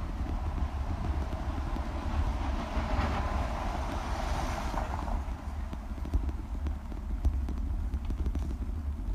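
Rumble and rattle of a bicycle-mounted action camera riding over a brick-paved street, with wind on the microphone. A hiss swells and fades in the middle.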